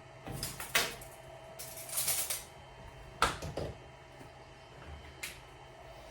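Scattered knocks and clicks of tools and parts being handled, with a short scraping rustle about two seconds in and the sharpest knock just past three seconds.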